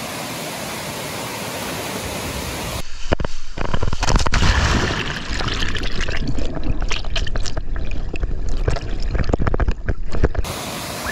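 Steady rush of a waterfall pouring into a pool. About three seconds in the sound turns muffled and heavy in the lows as it is heard from underwater, full of sharp clicks and crackles, and the open rush of the falls returns near the end.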